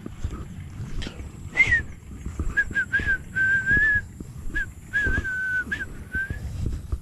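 A person whistling a short tune, a string of brief notes and a couple of longer held ones, over footsteps swishing through grass.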